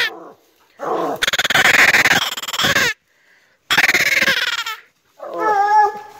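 Coonhound baying at the foot of a tree in three long, loud bawls, the first starting about a second in. This is its tree bark, the sign that it has game treed above it.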